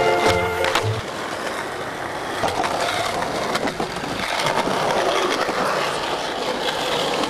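Skateboard wheels rolling on smooth concrete, a steady rough rumble with scattered clicks and taps from the board. A slide-guitar music track plays for about the first second, then cuts out.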